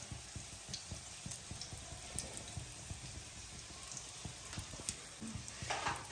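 Breaded chicken nuggets shallow-frying in oil, a steady low sizzle scattered with many small crackles. A short rustle near the end.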